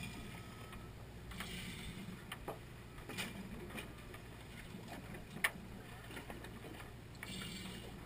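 Steady low hum of a fishing boat's engine, with a few light clicks and taps of handling close by. The sharpest click comes about five and a half seconds in.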